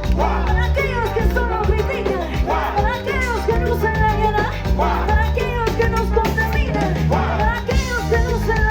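Live Latin pop band playing an upbeat salsa-style number, with drum kit, bass and melody lines over a steady beat.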